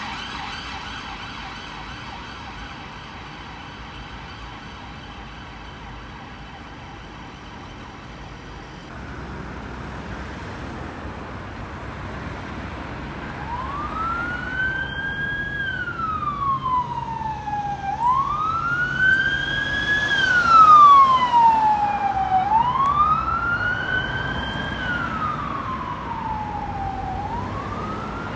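Police car sirens over city traffic. A fast-cycling siren fades away over the first several seconds. Then a slow wail rises and falls about every four and a half seconds, getting louder as the police car approaches and peaking about two-thirds of the way through.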